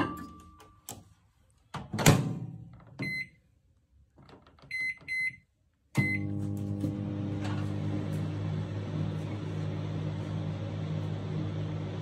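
Von VAMG-20DGS microwave oven: the door shut with a thud about two seconds in, then four keypad beeps (one, a quick pair, and one as it starts). From about halfway it runs with a steady low hum and fan hiss as it begins its one-minute heating cycle.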